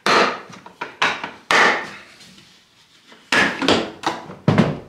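Hard plastic Milwaukee Packout tool boxes being handled: a run of about seven sharp knocks and clunks from lids, latches and stacked cases, with a short pause in the middle.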